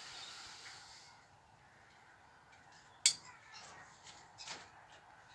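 A single sharp click about three seconds in, followed by a few fainter ticks and light rustling.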